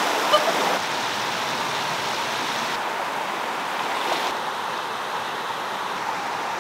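Stream water flowing in a steady rush, with no distinct splashes.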